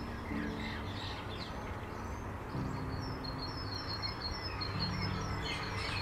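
Small birds chirping, with a quick repeated high chirp and short falling calls, over soft held music chords that change every couple of seconds.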